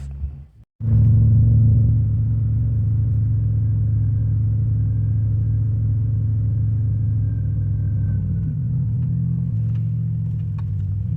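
Toyota pickup truck's engine running steadily, coming in suddenly about a second in.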